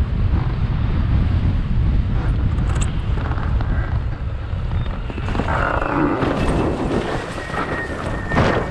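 Wind buffeting the microphone over the rush of water past a windsurf foil board under sail, with a brighter hiss of water about halfway through. A faint thin whistle comes in near the end.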